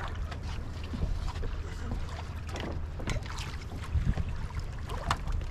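Water slapping against a small boat's hull with wind rumbling on the microphone, and scattered splashes and knocks. The loudest comes about four seconds in, as a landing net is dipped into the sea.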